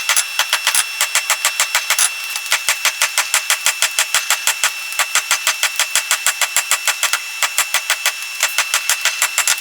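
A power hammer striking hot steel in a fast, even rhythm of about seven blows a second, over a steady high ringing tone.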